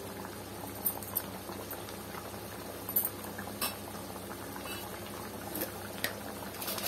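Thick tamarind fish curry boiling in a kadai, a steady bubbling with occasional sharp pops.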